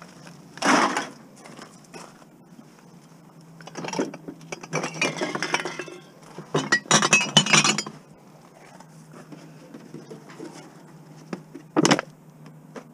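Empty glass bottles clinking and knocking together as they are handled and dropped into a plastic bin. There is a knock about a second in, a long run of clinking from about four to eight seconds, and one sharp knock near the end.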